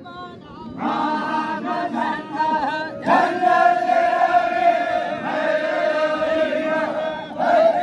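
Zikri chogan devotional chant: a group of voices singing together, joining in about a second in and holding one long note from about three seconds in to near the end.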